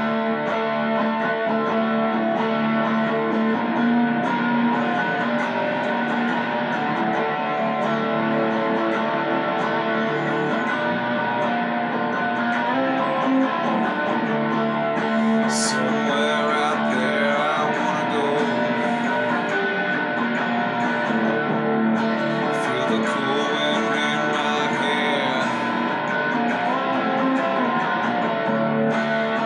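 Electric guitar played with a strummed chord rhythm, an instrumental passage with no singing.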